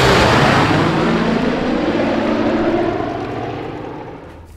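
Propeller aircraft engines droning: a steady low hum under a rushing noise that fades away over the last couple of seconds.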